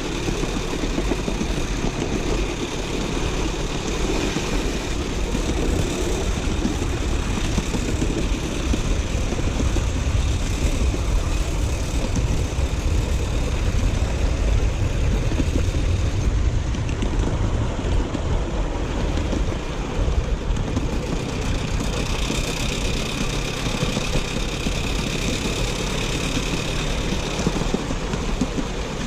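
Miniature steam train running on its track, heard from aboard: a steady rumble that is heaviest around the middle.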